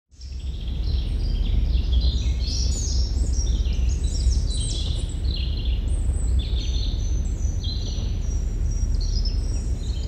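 Several small birds singing and chirping in quick, overlapping phrases over a steady low rumble.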